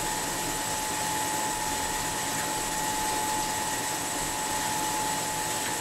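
Wet belt grinding machine for glass edges running steadily: an even motor-and-belt noise with a thin, high, constant whine.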